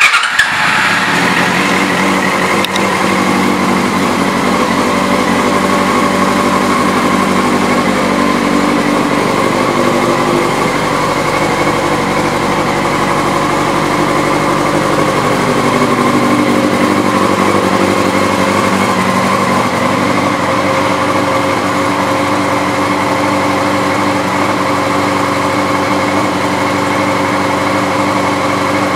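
2001 Yamaha YZF-R6's carbureted 600 cc inline-four engine firing up with a brief loud burst, then idling steadily; the idle speed shifts slightly a couple of times.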